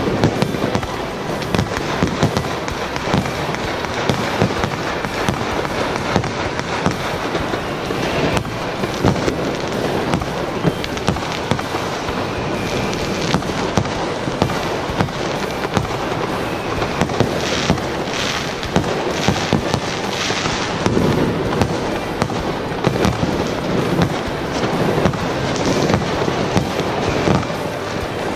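Fireworks and firecrackers going off in a dense, continuous barrage of bangs and crackles, with no let-up.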